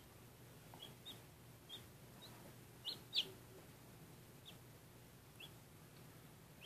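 Newly hatched Ameraucana chick peeping: about nine short, high peeps at irregular intervals, the loudest pair about three seconds in. A faint steady low hum runs underneath.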